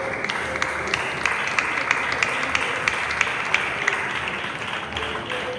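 Congregation applauding, with sharp claps at a steady rate of about three a second over the general applause.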